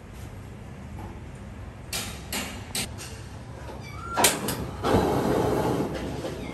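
Gas hob burner under a wok being lit: a few sharp igniter clicks, a louder click about four seconds in, then the flame catches with a steady rushing hiss about five seconds in.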